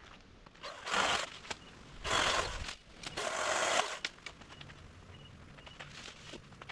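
Three rustling crunches about a second apart, from someone stepping or pushing through dry leaves and brush.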